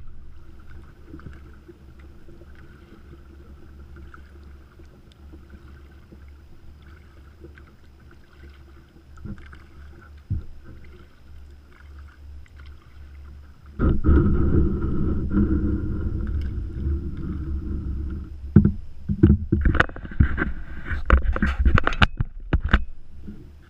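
Plastic kayak gliding on calm water with faint paddle and water noise. About fourteen seconds in, a much louder rumbling sets in, then a run of sharp knocks and clunks against the boat near the end.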